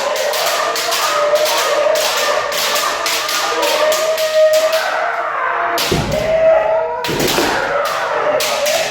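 Kendo practice: bamboo shinai repeatedly clacking against each other and against armour, over drawn-out kiai shouts from several practitioners, with a heavy thud around the middle.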